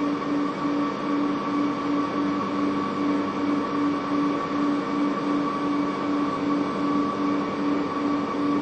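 Steady electronic humming tones over a light hiss, with a lower tone pulsing evenly about three times a second.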